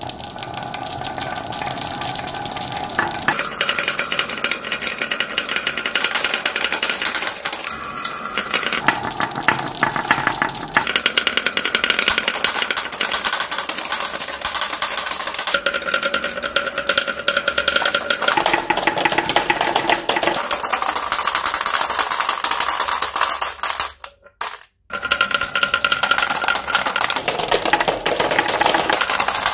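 Many glass marbles rolling along carved wooden tracks, a steady rolling rumble full of rapid clicks as they knock against each other and the wooden walls, the ringing pitch shifting every few seconds. The sound breaks off briefly once, about three-quarters through.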